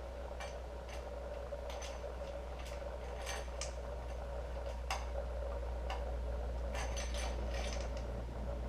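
Scattered sharp metallic clicks and clinks of hand tools working on the timing-chain end of a GMC 3.7 L Atlas inline-five engine, some in short quick runs, under a steady low hum.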